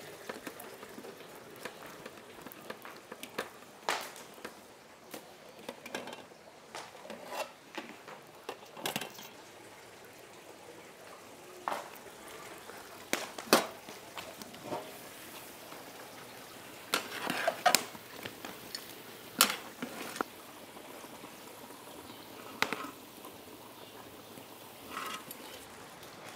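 Kitchen handling sounds: scattered clinks and knocks of pots, dishes and utensils at irregular moments over a faint steady hiss, the sharpest a few strikes in a row about halfway through.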